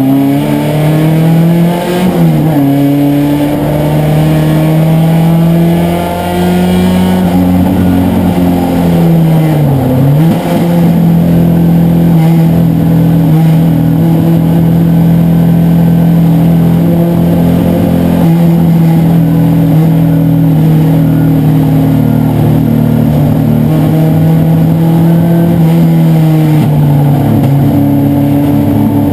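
Vintage sedan race car's engine heard from inside the stripped cockpit, held loud at high revs. The revs dip sharply and climb back about two seconds in and again about ten seconds in, with a smaller drop near the end.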